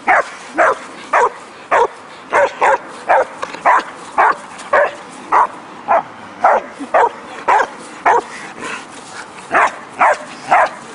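Dog barking over and over in play, a steady run of short barks about two a second, with a brief pause near the end.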